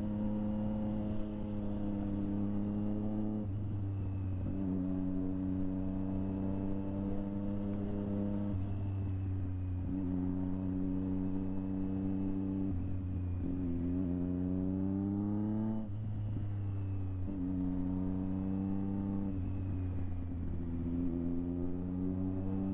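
Triumph Street Triple 765 RS's inline three-cylinder engine running through a Delkevic aftermarket exhaust while riding. The pitch holds steady for a few seconds at a time and then steps to a new level, with the revs climbing clearly about two-thirds of the way through before dropping again.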